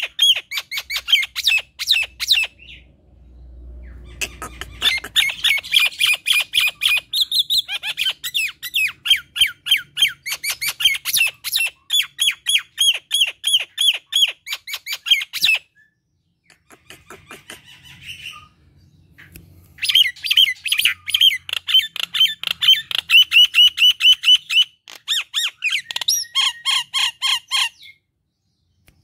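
Common myna calling in long runs of rapid, harsh chattering notes, several a second, with a quieter, sparser stretch a little past the middle.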